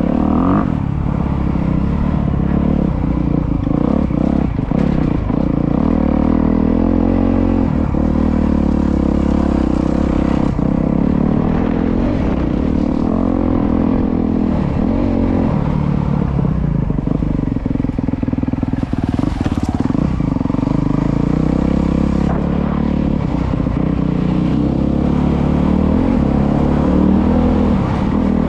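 Honda CRF250R's single-cylinder four-stroke engine being ridden, revving up and down as the throttle opens and closes, with some clatter.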